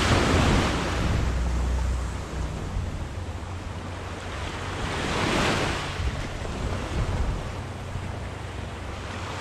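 Small waves breaking and washing up the sand at the water's edge, the surf swelling twice, about a second in and again around five seconds in. Wind rumbles low on the microphone throughout.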